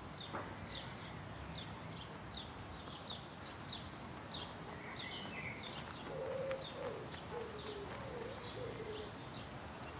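Small birds chirping in a quick repeating series, with a bird cooing in low, warbling phrases about six seconds in, over a steady low rumble of distant traffic.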